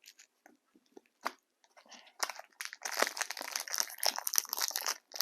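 A few light clicks and rustles, then, from about two seconds in, the dense crinkling of a trading-card pack wrapper being handled and torn open.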